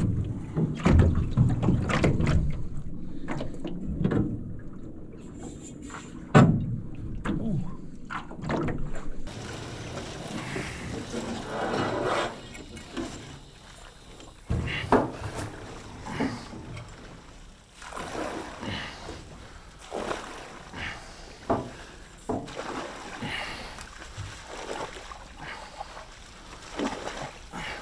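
Knocks and clunks from an aluminium jon boat's hull as a man moves about in it, with a sharp thump about six seconds in. Then a paddle pushes the boat through thick floating water plants: rustling and swishing with repeated knocks of the paddle against the hull.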